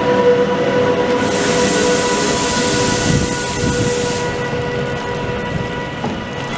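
VR Sr2 electric locomotive running, with a steady whine made of several held tones over a low rumble. A hiss comes in about a second in and stops about three seconds later.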